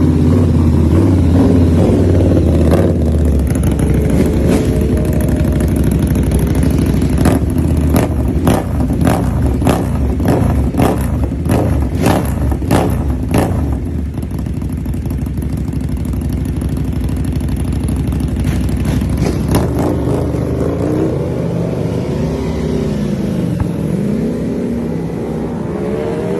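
Superbike engine running loud, with a rapid series of sharp cracks from about seven seconds in for several seconds; later the engine pitch rises and falls in smooth sweeps.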